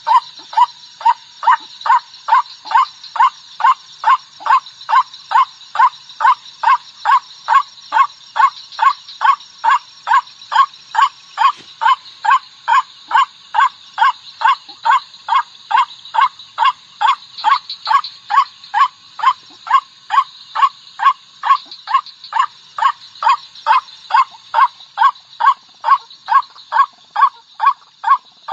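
White-breasted waterhen (Amaurornis phoenicurus) lure call: one short call note repeated evenly about twice a second without a break, over a constant high hiss.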